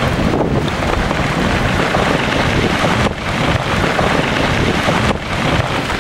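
A massive rockfall breaking away from a mountain cliff: a continuous loud rumble of falling rock, dipping briefly twice.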